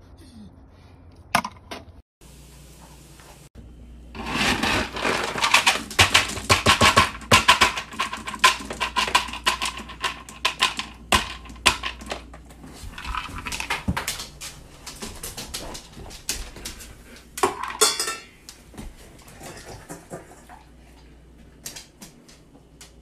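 Dry dog kibble rattling and clattering as a scoop digs through it in a plastic storage bin. Later come fainter clinks as a dog eats from a stainless steel bowl.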